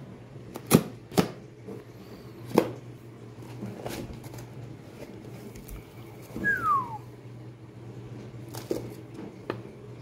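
Cardboard box and plastic packaging handled while a microphone box is opened: several sharp knocks and clicks and some rustling, with a short falling squeak about six and a half seconds in. A steady low hum runs underneath.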